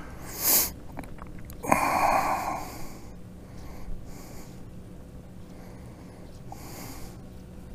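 Two noisy breaths or sniffs close to the microphone: a short hiss about half a second in and a longer, louder one about two seconds in, over a faint steady low hum.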